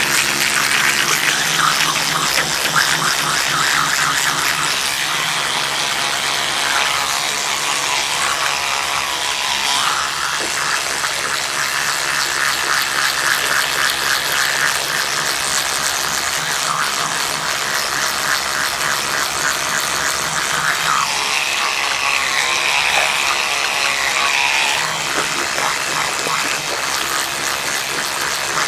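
Electric toothbrush brushing teeth: a steady motor hum with a fast scrubbing buzz, changing in tone a few times, around a quarter and again about three quarters of the way through.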